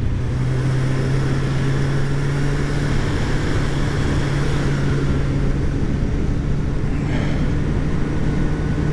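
Kawasaki Z1000 inline-four engine running at a steady speed under way, its note holding constant, over heavy wind and road rush.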